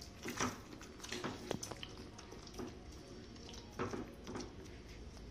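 Silicone spatula stirring paneer cubes through thick gravy in a pan, a handful of brief, irregular stirring sounds.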